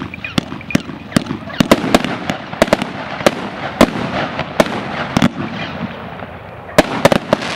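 Multi-shot consumer fireworks cake (torta) firing: a rapid, irregular string of sharp shots and bursts, roughly three a second, pausing briefly before a quick cluster of shots near the end.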